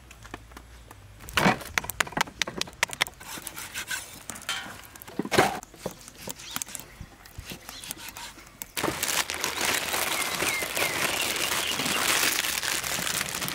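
A cleaver chops through pork belly onto a wooden chopping board in separate sharp knocks. At about 9 s the plastic wrappers of instant noodle packets start being torn open and crinkled without a break.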